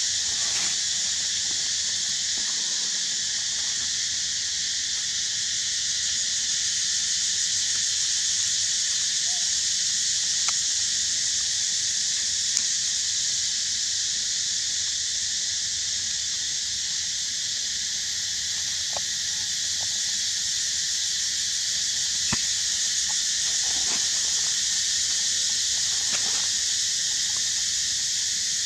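Steady high-pitched insect chorus, a continuous even buzz, with a few faint ticks now and then.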